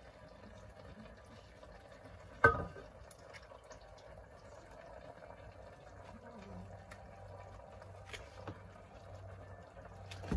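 Thick red sauce being poured and squeezed from a small carton into a pot of chicken, a faint wet pouring sound. A single sharp knock about two and a half seconds in is the loudest thing.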